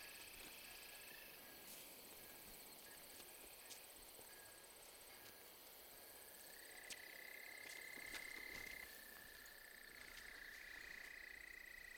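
Faint insect chirring: steady high trills, one of them a fast pulsing buzz, with a few soft ticks.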